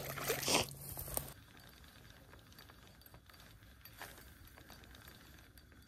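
Water splashing on a pond's surface, two quick splashes in the first second, then only faint background.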